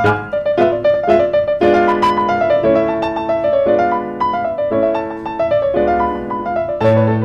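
Piano music, with chords changing about once a second under a melody of single notes.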